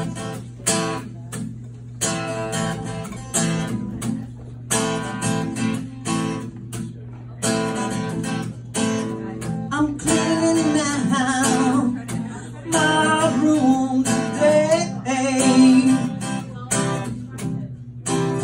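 Solo acoustic guitar strumming chords in a steady rhythm. A man's singing voice joins over it from about ten seconds in for several seconds.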